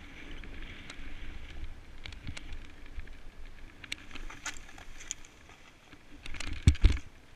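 Snowboard sliding and scraping over packed snow, with scattered crunches and a low wind rumble on the microphone. A cluster of louder knocks and scrapes comes near the end.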